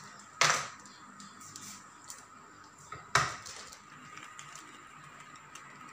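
Two sharp knocks about three seconds apart, over faint rustling of a plastic bag of glutinous rice flour being poured into a plastic tub.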